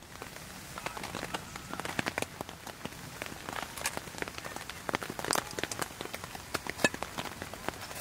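Rain falling, with separate drops striking a surface at irregular intervals, several a second.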